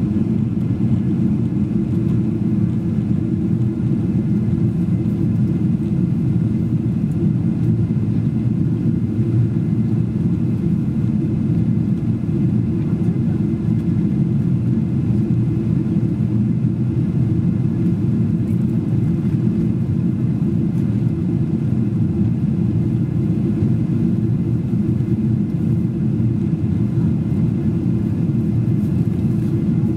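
Steady low roar inside the cabin of a Boeing 777-200 airliner in flight: jet engine and airflow noise heard through the fuselage, even and unchanging throughout.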